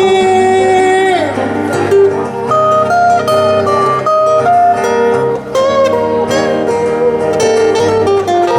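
Acoustic guitars playing an instrumental passage of a pop song, with a picked lead melody of separate notes over strummed chords; a held sung note ends about a second in.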